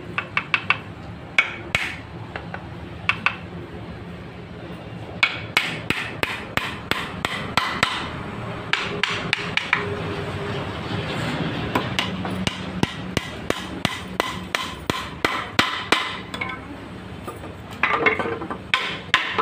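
Hammer striking repeatedly in woodworking, in quick runs of sharp blows separated by short pauses, over a steady low hum.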